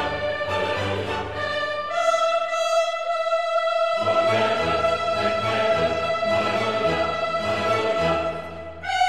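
Background music: a long held melody note that steps up in pitch about two seconds in and again near the end, over a low bass part that drops out briefly and then returns.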